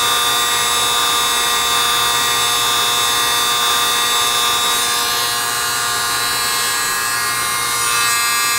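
Handheld heat gun running: the steady rush of hot air from its fan with a fixed motor whine. It is preheating a circuit board until the airstream can melt solder for desoldering a chip. The sound dips a little past the middle and comes back up near the end.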